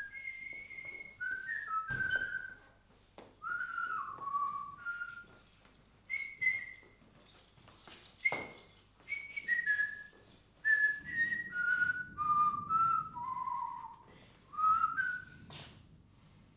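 A person whistling a tune: a run of clear short notes that step and slide up and down, in phrases with short pauses between them. A few sharp knocks come through, the last and loudest near the end.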